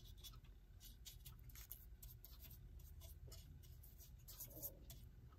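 Faint, irregular scratchy strokes of a small brush dabbing water around the edge of a wooden clock-base foot, wetting its hide-glue joint to soften it.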